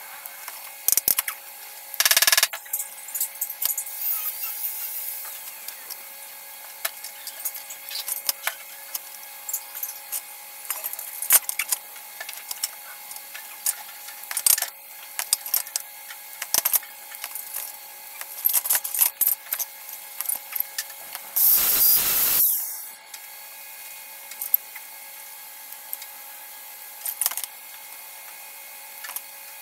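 Workshop tool work: scattered sharp clicks and taps, with two short bursts of a small power tool, a brief one about two seconds in and a longer one of about a second about three quarters of the way through, over a steady hum.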